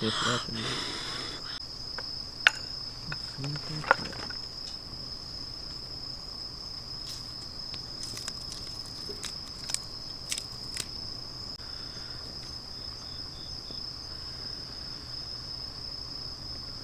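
Crickets chirring in a steady, high-pitched drone, with a few sharp clicks scattered through it.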